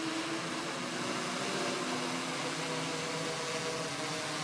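Six-rotor multicopter's electric motors and propellers whirring steadily in flight, several hum tones drifting slightly in pitch as the throttle shifts.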